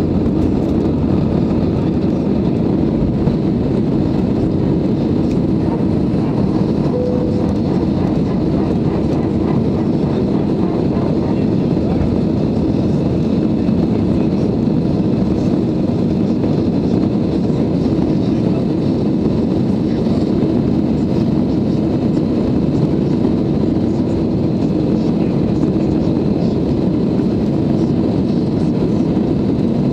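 Airbus A320's CFM56-5B engines at takeoff power, heard inside the cabin over the wing: a steady, loud, low rush through the end of the takeoff roll, the liftoff and the initial climb.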